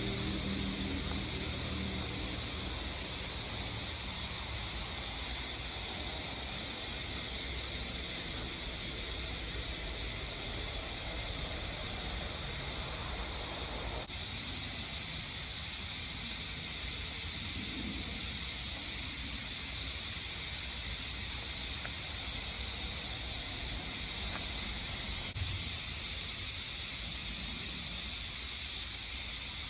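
Steady, high-pitched chorus of insects, cicadas or similar, shrilling without a break; the pitch of the chorus changes abruptly about halfway through and again near the end.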